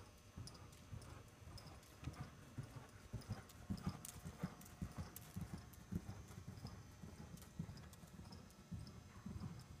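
Pony's hoofbeats at the trot on soft arena footing: a steady rhythm of dull thuds, loudest about halfway through as the pony passes close, then fading as it moves away.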